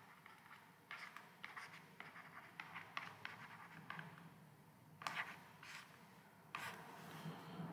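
Faint, short scratching strokes of a stylus nib on a Wacom pen tablet as handwritten symbols are written.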